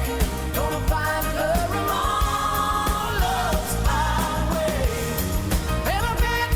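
Background pop-rock music with a steady drum beat and a melodic lead line.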